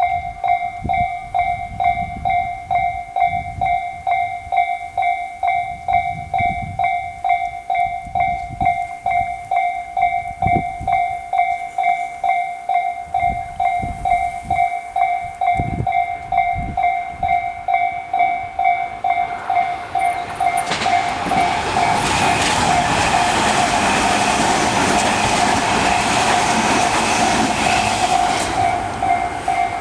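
Electronic warning bell of a Japanese railway level crossing, Tobu's 'sound C' type, ringing in a fast, even, repeating ding. About two-thirds of the way through, a Tobu 60000 series electric train passes, its loud rushing wheel-on-rail noise rising over the bell and dying away near the end.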